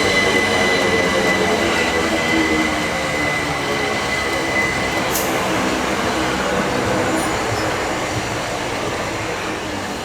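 Class 377 Electrostar electric multiple unit train running through the station, a steady electric whine over rolling rumble, slowly fading. A brief sharp click about five seconds in.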